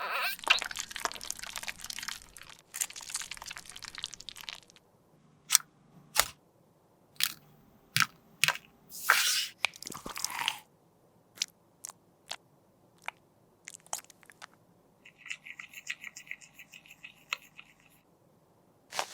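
Makeup being crushed and scraped with a tool, a dense crackly crunching for the first few seconds. Then come scattered sharp clicks and taps, and a short stuttering scrape near the end.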